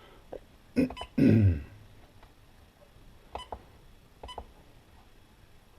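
Short clicking beeps from the SkyRC Quattro Q200 charger's buttons as a channel's settings are stepped through, a few single presses a second or so apart. About a second in there is a brief vocal sound falling in pitch, louder than the beeps.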